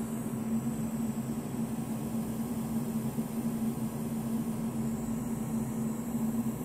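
Steady electrical fizzing with a hum underneath from inside a powered-up HP 5328A frequency counter. It is a fault noise, which the owner believes comes from one of the small transformers rather than the main transformer.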